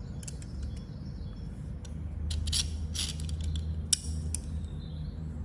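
Knipex Cobra water pump pliers being handled: a string of short, light metallic clicks as the jaws and adjustment joint are worked, one sharper click about four seconds in, over a steady low hum.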